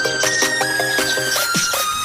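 Background music: an electronic track with plucked melodic notes over a steady beat.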